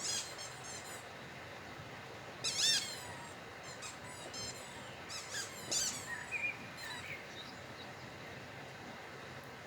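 A squeaky toy squeaking in quick runs of high squeaks, in several short bursts, the loudest about two and a half seconds in.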